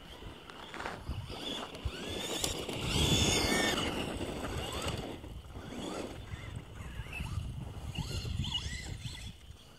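Traxxas Stampede RC monster truck driving on gravel, its motor whining up and down in pitch as the throttle is worked, over the crunch of tyres on loose stones. It is loudest about three seconds in and again near the end.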